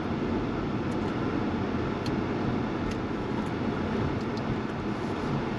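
Steady road and engine noise heard inside the cabin of a moving car, with a few faint ticks.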